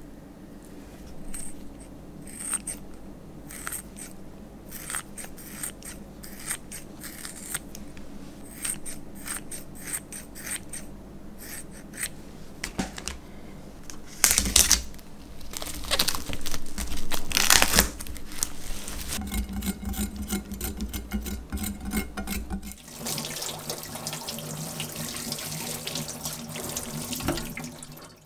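Close-up kitchen prep sounds. First, small wet clicks of raw squid being handled. Then, about halfway through, loud crinkling as a knife cuts the plastic wrap on cucumbers. Over the last few seconds, tap water runs steadily over the cucumbers into a stainless steel sink.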